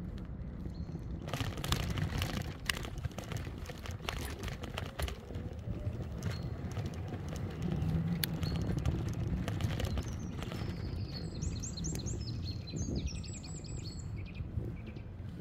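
Wind and road rumble from riding an e-bike, with scattered ticks and knocks. About two-thirds of the way through, a bird sings a quick run of high chirps for a couple of seconds.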